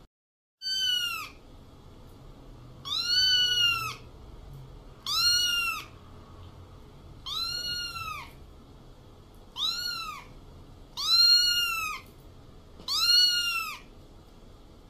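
Domestic cat meowing repeatedly: seven similar meows about two seconds apart, each rising then falling in pitch.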